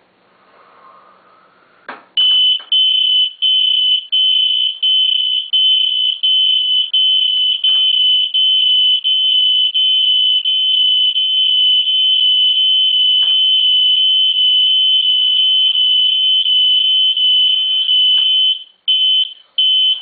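Smoke detector alarm sounding after sensing smoke: a loud, shrill high tone, choppy with short breaks at first and then nearly unbroken. It cuts off near the end and gives two short beeps as the detector resets once the smoke is gone.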